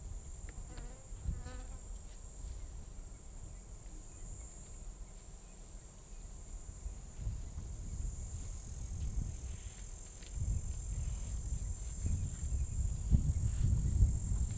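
Steady high-pitched drone of insects in dry bushveld. A low rumbling noise builds up under it over the last few seconds.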